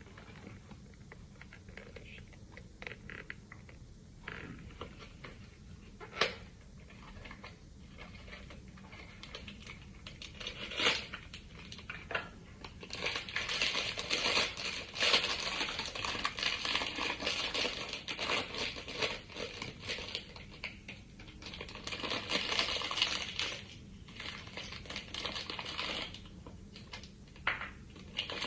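Sonny Angel blind-box packaging being opened by hand: scattered clicks and taps of cardboard being handled, then, about halfway through, long stretches of crinkling and tearing as the wrapper around the figure is torn open.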